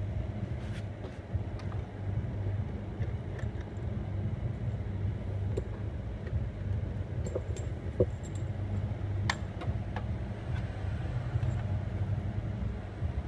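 Steady low electrical hum from the TIG welding machine setup, with a few light clicks and taps scattered through it.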